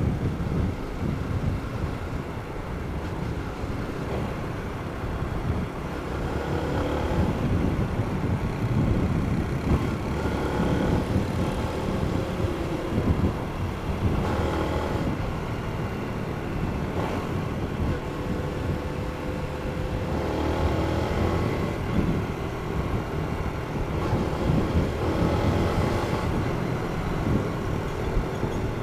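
Yamaha Jupiter MX King (Y15ZR) 150 cc single-cylinder four-stroke on its standard exhaust, running with the engine speed rising and falling several times.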